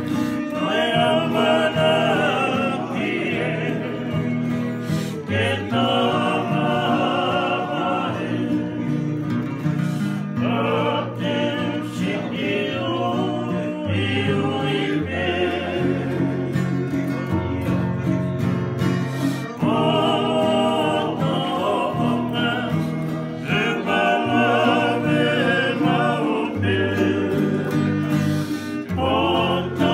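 Male voices singing a song in phrases a few seconds long, accompanied by strummed acoustic guitars and a ukulele.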